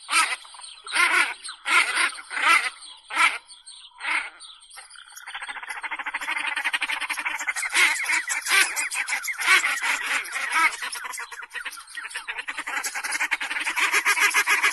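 Animal calls: a run of about seven loud calls roughly half a second apart, then, from about five seconds in, a continuous rapid chatter of many calls together.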